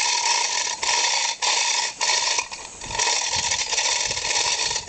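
Hand-operated chain fall being pulled under load: the hand chain rattling through the hoist with its ratchet clicking, in a run of pulls a half second or so long with short breaks between, as it strains a breaker bar against a rusted differential yoke nut.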